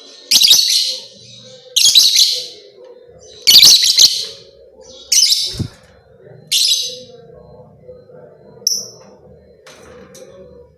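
Lovebird giving shrill, harsh chirps, five in a row about every second and a half, then a short thinner high note near the end. A faint steady hum runs underneath.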